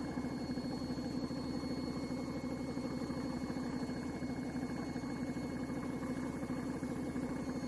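Compressor driving a paint spray gun, running steadily with a fast, even chugging and a thin high whine over it.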